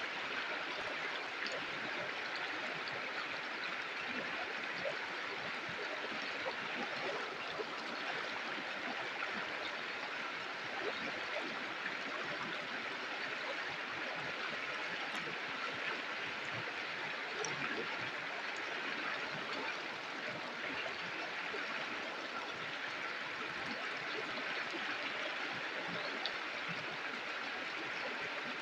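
Shallow river or stream flowing steadily, water gurgling and splashing over rocks.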